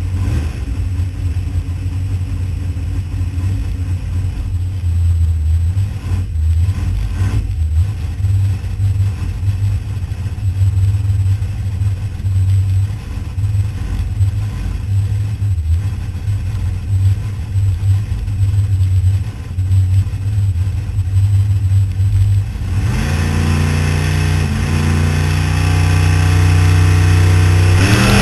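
Holden VL Commodore drag car's race engine, heard from inside the cabin, running at a lumpy, uneven idle. About 23 seconds in the revs climb steadily as the car is brought up on the start line just before launch.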